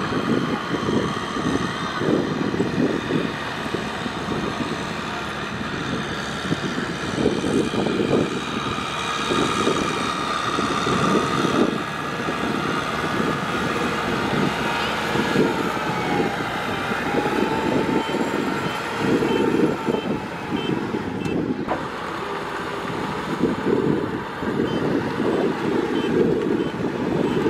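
Kubota M6040SU tractor's four-cylinder diesel engine running steadily under load as it pulls a loaded trailer through deep mud and water.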